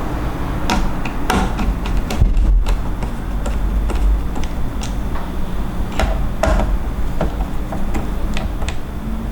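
Irregular light clicks and taps of small hardware being handled and fitted onto a motherboard while an M.2 SSD and its heatsink go in, over a steady low hum.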